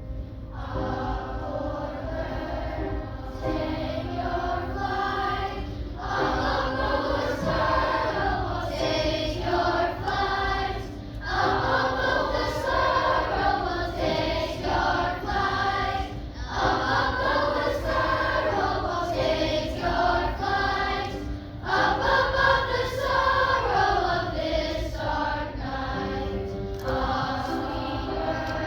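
A choir singing a song in phrases of a few seconds, with short breaks between them.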